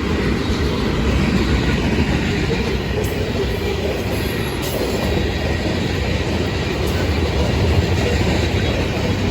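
Freight train rolling past: a steady, loud rumble of rail cars' wheels on the track.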